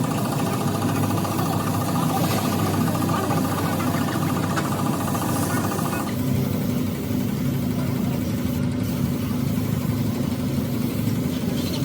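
A motor engine running steadily. About six seconds in, its higher-pitched tones drop away, leaving a lower steady running sound.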